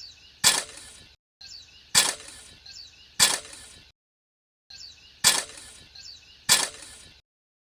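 Five sharp cracking impacts about a second or so apart, in short cut-together clips with dead silence between them.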